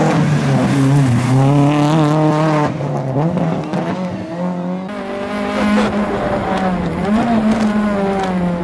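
Nissan Sunny GTI rally car's four-cylinder engine revving hard through tarmac corners, its pitch rising and falling with throttle and gear changes. About five seconds in it is heard from inside the car.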